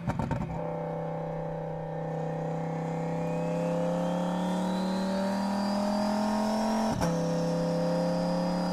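Audi R8's V10 engine running under load, its pitch rising slowly as the car accelerates, with a sharp click about seven seconds in.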